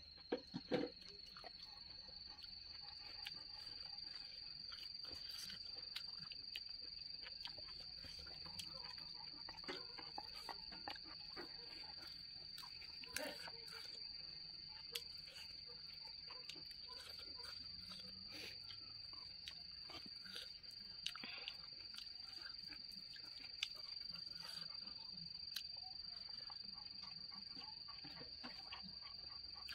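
A steady, high-pitched insect trill, with scattered clicks and smacks of close-up chewing and of fingers picking food from a steel plate; the sharpest clicks come about a second in.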